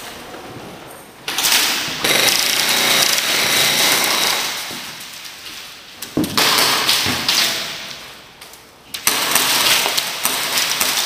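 Airsoft electric guns firing long full-auto bursts, a rapid rattling that comes three times with short pauses between.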